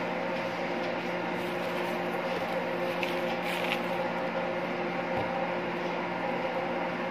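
Steady mechanical hum of a running kitchen machine, holding several even tones, with a few faint light clicks about three seconds in.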